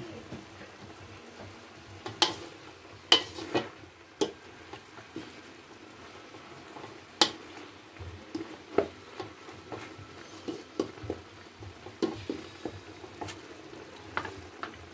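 A cooking utensil stirring chicken pieces in a metal wok of simmering sauce, knocking and scraping irregularly against the pan. The sharpest knocks come between about two and four seconds in and again around seven seconds.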